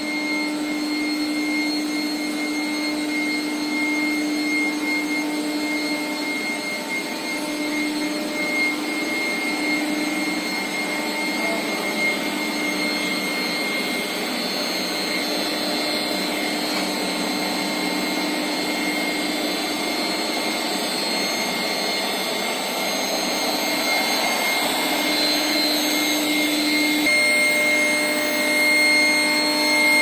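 Steel pipe induction annealing line running: steady machine noise with a constant high whine and a lower hum that drops out and comes back every few seconds.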